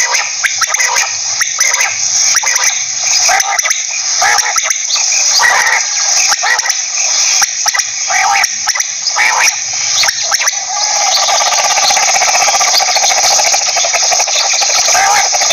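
Quail calling over and over in short, sharp notes; about ten seconds in, a continuous rapid trill takes over.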